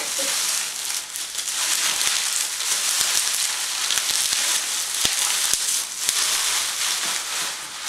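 Plastic bubble wrap crinkling and crackling steadily as it is handled, with a couple of sharper clicks about five seconds in.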